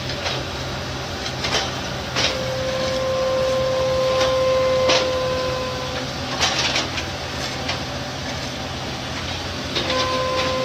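A heavy machine running: a steady low engine drone, with a steady mechanical whine held for a few seconds twice and scattered metallic clanks and knocks.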